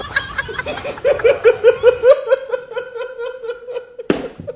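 A person laughing in rapid, even 'ha-ha-ha' pulses, about five a second, on one steady pitch and trailing off toward the end. A sharp knock cuts across the laughter about four seconds in.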